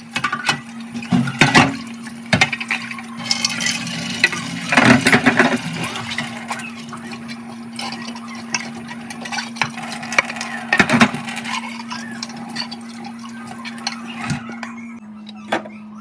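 Water running and splashing in a kitchen sink, with clinks of items being handled and rinsed, over a steady low hum.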